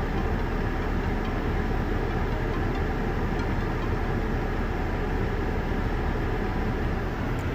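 2011 Acura TSX engine idling steadily after being refilled with fresh oil.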